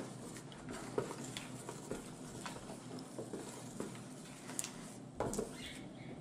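Wooden spatula stirring a runny slime mixture in a plastic bowl: soft wet scraping with irregular clicks and knocks as it hits the bowl's sides, over a steady low hum.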